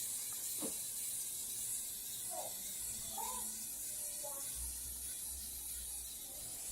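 Quiet steady hiss of background noise, with a few faint short squeaks in the middle and a brief low hum near the end.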